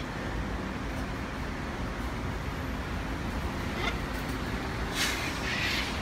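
Steady low rumble of distant city traffic heard from high up. A few short hissy rustles come about five seconds in.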